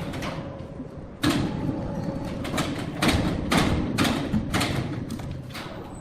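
Sawmill machinery running with a low rumble under a string of irregular heavy knocks and thuds, roughly two a second, the first loud one about a second in.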